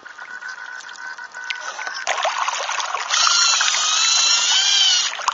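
Water rushing and splashing along the hull and foil of a radio-controlled Mini40 hydrofoil trimaran under sail. The sound builds from about two seconds in, and a wavering high whine rides over the hiss for a couple of seconds near the end.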